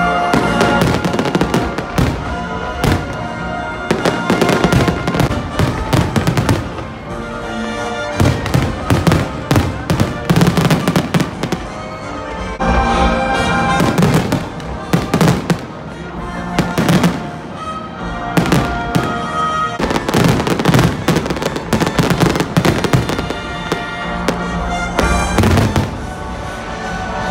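Aerial firework shells bursting overhead in quick succession, many sharp bangs through the whole stretch, over music playing throughout.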